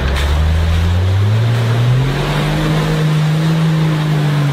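Engine of a lifted Toyota Land Cruiser on oversized mud tyres revving up over the first two seconds and then holding at a high, steady pitch as it drives through mud, over a steady hiss of churning tyres.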